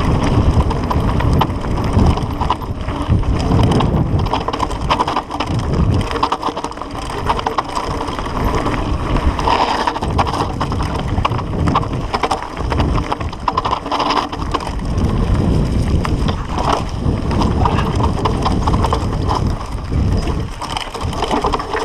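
Canyon Grand Canyon CF mountain bike rolling fast downhill over loose gravel: a continuous crunch of tyres on stones, with the bike rattling and knocking over bumps and a heavy low rumble.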